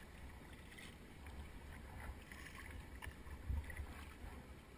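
Kayak paddle strokes: the blade dipping and dripping water in a few soft splashes, the loudest about three and a half seconds in, over a steady low rumble.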